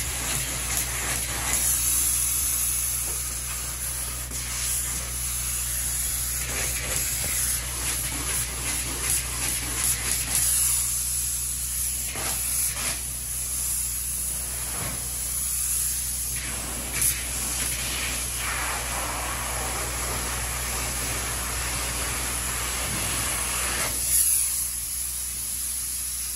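Spray foam gun spraying 2-pound closed-cell polyurethane foam: a steady hiss of the foam leaving the nozzle, with a steady low hum underneath.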